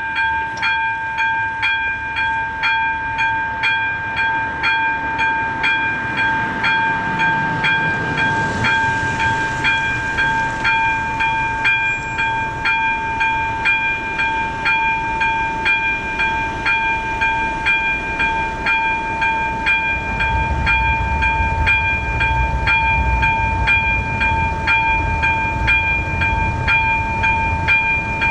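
Level-crossing warning bell, an AŽD ZV02 electronic bell, ringing steadily with a sustained ringing tone and a regular beat of about three strokes every two seconds while the warning lights flash and the barriers are down. A low rumble of a vehicle joins beneath it in the last third.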